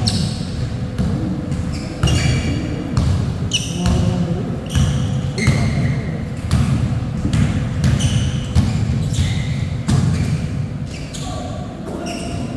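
A basketball being dribbled on an indoor court, thudding about once or twice a second, mixed with short high squeaks of sneakers as players cut and stop. The bouncing eases off near the end.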